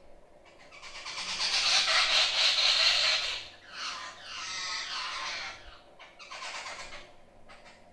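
Jungle babblers calling together in a harsh, squealing chatter, loudest over the first few seconds, then a second, wavering bout and a weaker one before it dies down near the end.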